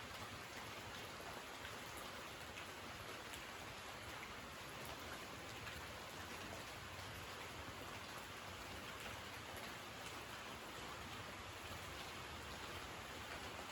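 Steady rain falling on a tin roof, a soft even patter with scattered faint drop ticks.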